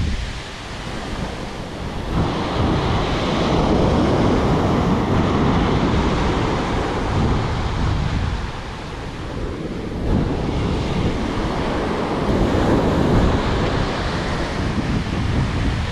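Ocean surf breaking and washing up a sandy beach, swelling and easing as the waves come in, with wind buffeting the microphone.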